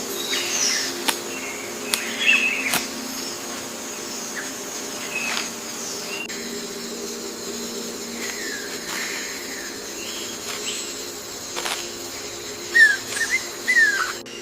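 Rainforest ambience: scattered short bird chirps over a steady high hum. A few sharp clicks, and a quick run of louder chirps near the end.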